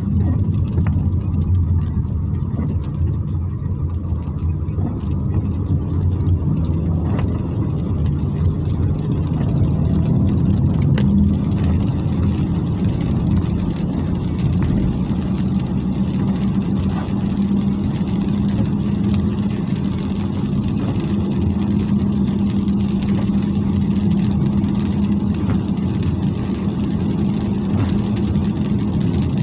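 Car engine and tyre noise heard from inside the cabin on a wet road: a steady low drone that rises a little in pitch and settles into an even hum about ten seconds in as the car gathers speed.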